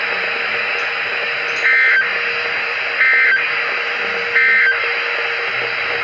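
A Reecom NOAA weather radio's speaker plays the SAME end-of-message data tones over steady radio hiss. There are three short, shrill two-tone warbling bursts, about 1.3 seconds apart, marking the end of the tornado warning broadcast.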